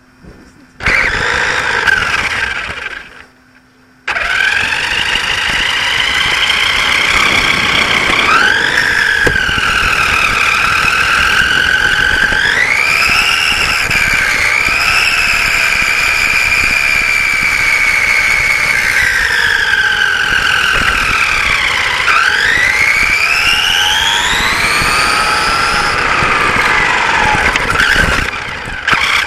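Radio-controlled racing saloon car heard from on board, its motor and drivetrain whining over rolling tyre noise on tarmac, the whine rising and falling in pitch with speed. A short burst of driving about a second in, a brief pause, then a long run with a deep dip in pitch and a rise again late on, fading as the car slows.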